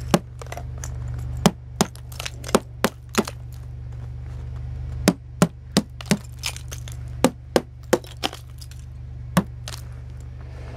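A claw hammer knocking ice off the tailgate of a Chevrolet S-10 Blazer: sharp cracking blows in quick runs, about fifteen in all, with a pause of a couple of seconds near the middle and one last blow near the end.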